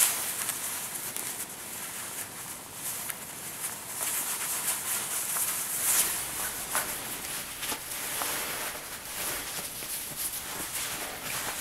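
Close-up rustling and swishing of a necktie's fabric sliding and rubbing against itself and the shirt collar as the knot is tied and pulled, with many small brushing ticks.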